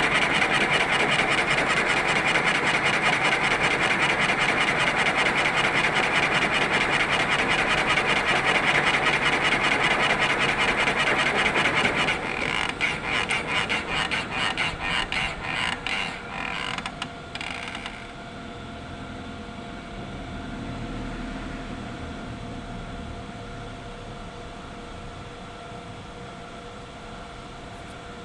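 Lathe machining: a loud, rapid rasping cut for about twelve seconds, which breaks into separate scraping strokes and stops about eighteen seconds in. After that the machine runs on with a quieter steady hum.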